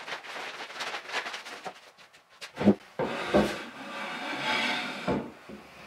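Wooden knocks and scraping as timber pieces and a wooden bench frame are handled and set down on a wooden workbench, with a few sharp knocks in the middle and a stretch of rubbing noise.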